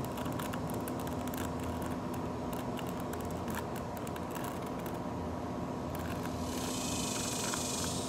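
Irregular clicks of a Rubik's cube being twisted by hand, over a steady hum; a high hiss joins for the last second and a half.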